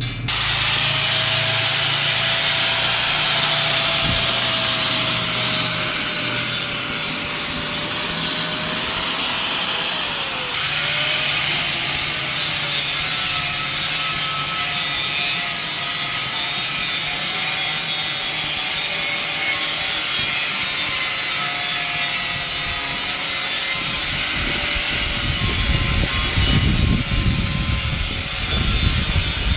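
Ingco angle grinder with a flap disc grinding rust and paint off an iron frame: a loud, steady hiss of the abrasive on the metal over the motor's whine, which wavers a little as the disc is worked. A heavier low rumble joins in over the last few seconds.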